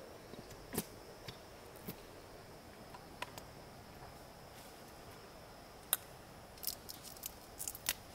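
A series of small sharp clicks and snaps, irregularly spaced, with a quick cluster of them near the end, over a faint steady high-pitched hum.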